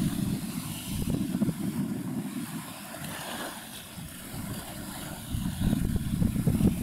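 Wind buffeting the microphone: a low, gusting rumble that eases off in the middle and swells again near the end.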